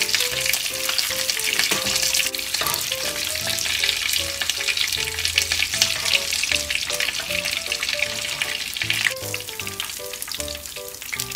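Nut-crusted mackerel fillets shallow-frying in olive oil in a frying pan: a steady dense sizzle and crackle, the fillets fried crisp. The sizzle thins out about nine seconds in.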